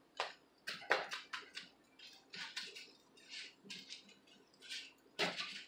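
Wooden spatulas scraping and tapping on a griddle as paratha roti (buss-up-shut) is scrunched and broken up: a string of short, irregular scrapes and clicks, the loudest a little after five seconds in.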